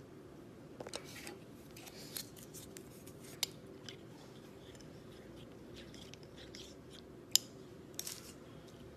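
Clear plastic bag crinkling and rustling as it is handled, with scattered small clicks; two sharper clicks stand out, one about three and a half seconds in and a louder one a little after seven seconds.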